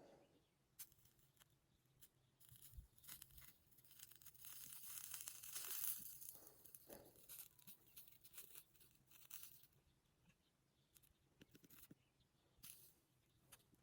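Faint sizzling and crackling of a soldering iron melting solder over flux along stained-glass seams. It is loudest about four to six seconds in, with scattered small clicks.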